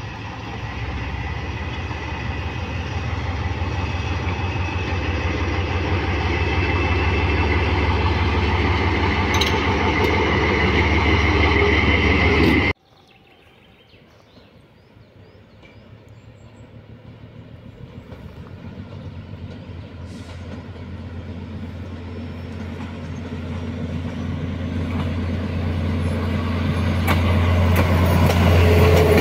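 Class 743 diesel locomotive running with a steady low engine hum, growing louder as it approaches. It breaks off suddenly about 13 seconds in. A diesel passenger train's engine and running noise then build up steadily, loudest as the coaches pass near the end.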